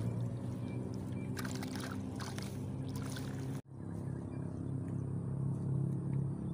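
A motor running steadily in the background, a low even hum. The sound cuts out for an instant a little past halfway.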